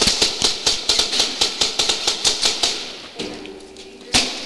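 Airsoft gunfire: a dense, uneven string of sharp cracks several a second, with BBs striking plywood walls, stopping about three seconds in. One loud crack comes near the end.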